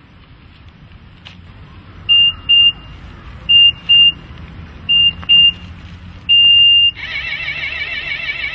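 Electronic warning beeper of a coin-operated 'Pay & Sit' park bench: three pairs of short high beeps, then one longer beep, sounding as the paid sitting time runs out before the seat spikes rise. About seven seconds in, a loud warbling tone with several pitches takes over.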